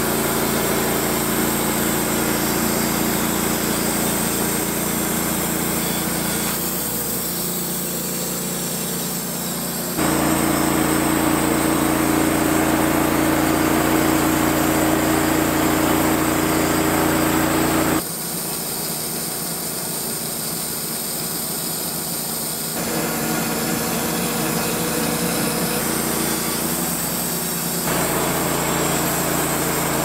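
Wood-Mizer LT15 portable band sawmill running steadily, its engine driving the band blade through a white oak log. The drone jumps abruptly in level and tone several times, about five times over the stretch.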